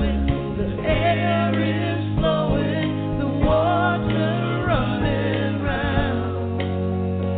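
A song with a singing voice carrying a wavering melody over sustained bass notes and backing instruments.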